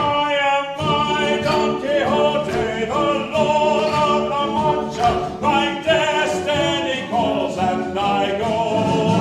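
Music with singing voices over instrumental accompaniment, in a classical or stage style.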